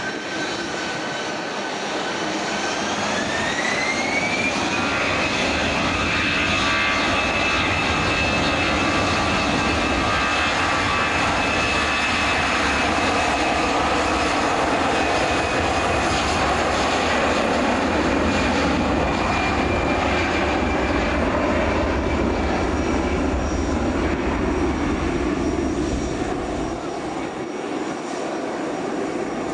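Airbus A320-214's CFM56 turbofan engines spooling up to takeoff thrust: a whine that rises in pitch a few seconds in and then holds steady over a broad jet rumble, easing off near the end.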